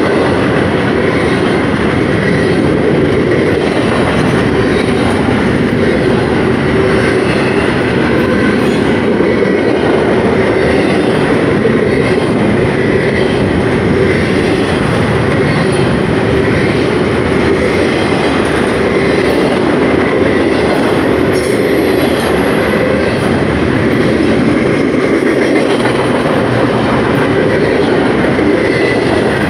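Double-stack intermodal container cars of a CSX freight train rolling past close by, steel wheels rumbling and clattering steadily over the rails, with a faint high steady whine from the wheels.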